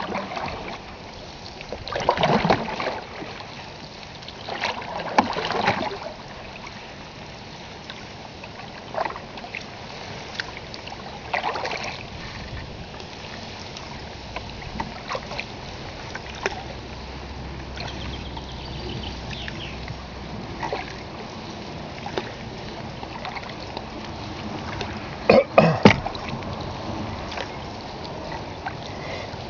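Canoe paddles dipping and pulling through river water in irregular swishes and splashes, over a steady background hiss. A few sharp knocks come close together near the end.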